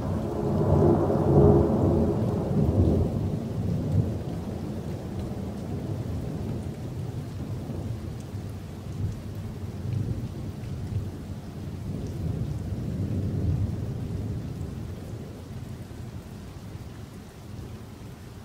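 Thunder: a sudden loud peal that rolls on as a long low rumble, swelling again about thirteen seconds in and fading near the end, over the steady hiss of rain.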